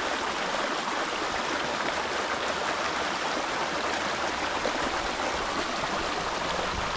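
A small creek flowing, its water running over rocks in a steady rush with no breaks.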